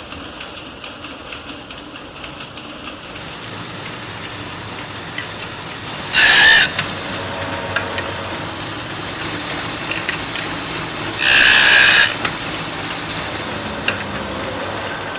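Steady workshop machine noise, with two short, loud hissing blasts about five seconds apart, each under a second long.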